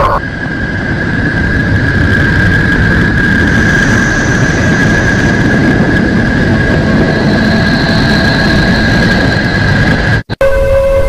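A space "sound" track of the kind made by turning spacecraft recordings into audio: a steady rumbling hiss with a high, steady whistling tone over it. Near the end it drops out for a split second, and a new track starts with a lower steady tone.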